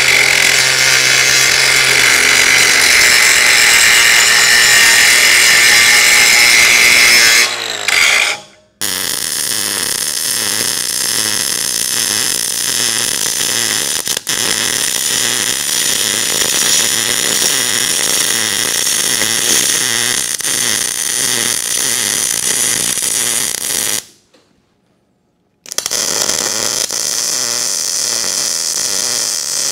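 Angle grinder grinding galvanized steel grating, a steady whine that stops about eight seconds in. Then a MIG welding arc sizzling steadily on the grating, whose galvanized coating was only partly removed with a sanding disc, for about fifteen seconds; after a pause of under two seconds a second weld starts near the end.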